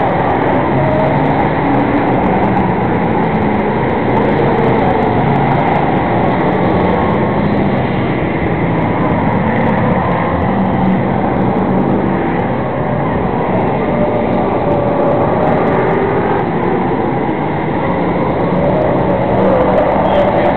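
A field of enduro stock cars racing at speed around an oval, many engines running at once, loud and steady, with engine notes rising and falling as cars pass.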